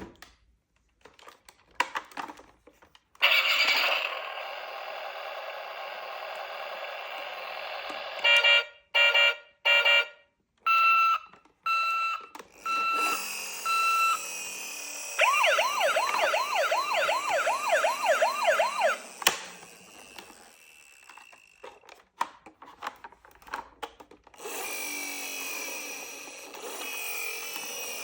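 Toy emergency vehicle's electronic siren running through its sounds: a steady electronic tone, then a string of short beeps, then a fast warbling wail of about three cycles a second. Clicks of the toy being handled fall between them, and another steady tone starts near the end.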